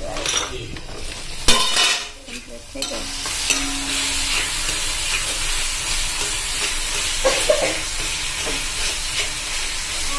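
Chopped tomatoes and green chillies sizzling in hot oil in a black iron kadai, stirred with a steel spoon that scrapes the pan. A sharp knock comes about a second and a half in, and the steady sizzle sets in about three seconds in.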